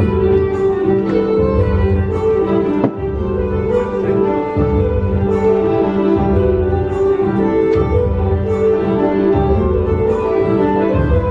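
Fiddle-led Irish dance music with a steady low pulse underneath.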